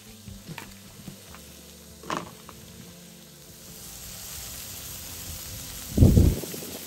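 Sausages, fried eggs and mushrooms sizzling on a Cadac gas barbecue griddle, a steady hiss that grows a little louder about four seconds in. A couple of clicks early on the way, and a loud low thump about six seconds in.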